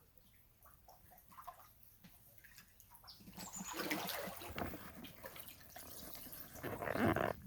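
Creek water: a few soft drips and trickles at first, then louder splashing and sloshing from about three seconds in, swelling again near the end.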